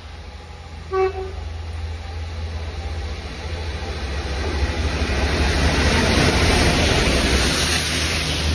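Class 66 diesel-electric freight locomotive approaching and passing at speed. It gives a short toot on its horn about a second in, then the engine and wheel noise grow steadily louder, loudest as it draws level near the end.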